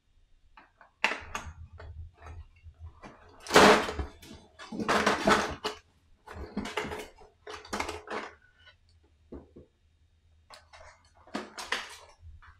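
Plastic miniature figures and their packaging being handled, rustling and clattering in short, irregular bursts, the loudest about three and a half seconds in.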